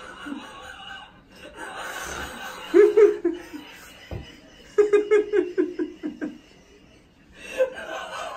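A person laughing in breathy, pulsing bursts: one short burst about three seconds in, then a longer run of rapid laugh pulses about five to six seconds in.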